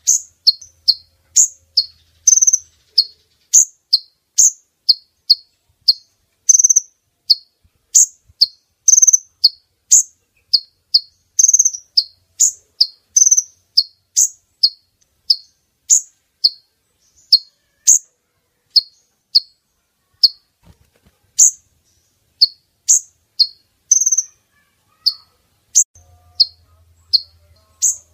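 Recorded call of a female kolibri ninja (a sunbird): a steady run of short, sharp, high chip notes, about two to three a second, often in quick pairs, with a brief pause about two-thirds of the way through. It is a lure call used to draw males in.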